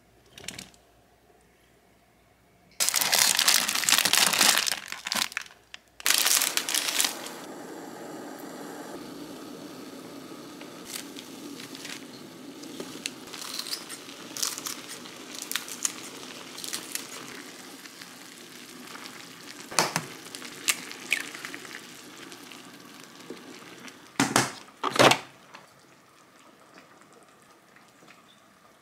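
Instant-ramen packet crinkling and tearing open, loud, in two spells; then ramen simmering in an aluminium pot with steady bubbling and small clinks. Near the end, two sharp snaps as the locking clips of a plastic food-storage container are unclipped.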